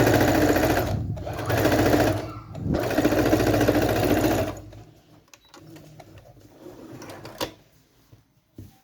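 Sewing machine stitching fabric in two runs with a short pause between them, then stopping about four and a half seconds in; a single click follows near the end.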